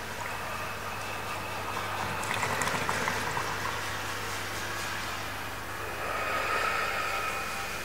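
City street noise with passing traffic: a steady low hum, a rattling stretch about two to three seconds in, and a tone that swells near the end.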